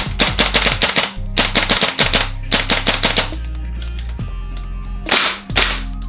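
Gas blowback airsoft guns firing rapid full-auto bursts: a KWA TAR21 for the first three seconds or so, then a pause, then a WE P90 firing another quick burst near the end. Background music with a steady low bass runs underneath.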